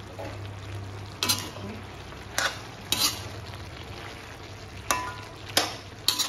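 Metal spatula scraping and clacking against an iron kadhai as chunks of pumpkin are stirred: about six sharp strokes, spread unevenly, over a faint sizzle and a low steady hum.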